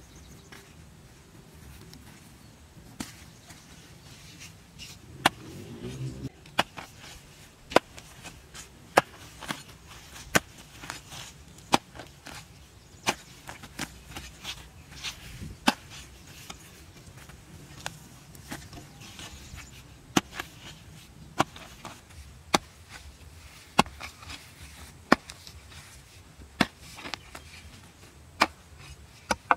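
A long-handled hoe chopping into grassy turf and soil, striking the ground over and over, roughly once a second, each strike sharp and short.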